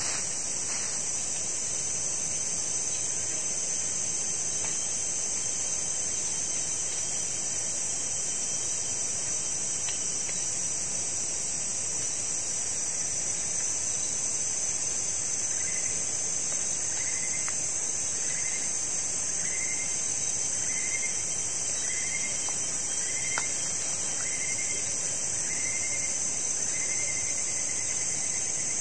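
Steady high-pitched drone of forest insects. From about halfway in, a short rising chirp repeats about once every second and a quarter.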